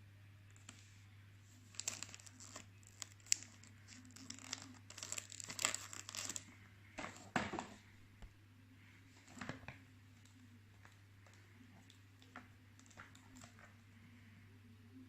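Perfume box packaging being torn open and crinkled: a run of crackling tears and rustles for several seconds, thinning to a few faint crinkles after about ten seconds.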